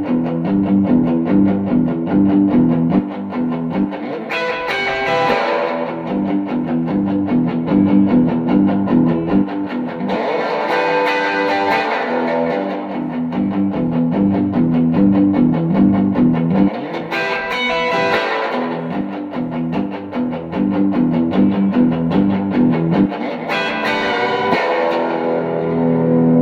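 Electric guitar played through an Echoplex EP-2 tube tape delay, picking a repeating figure of notes, with a sharp chord attack about every six to seven seconds.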